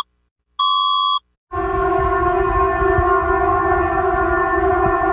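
Emergency alert alarm sounds: a short electronic beep about half a second in, then from about a second and a half a loud, steady alarm tone held at one pitch.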